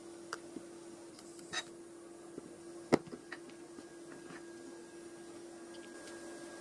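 Philips Avent SCF870 baby-food steamer-blender running in steam mode at the start of cooking, giving a steady low electrical hum. A few small clicks come over it, with one sharper click about three seconds in.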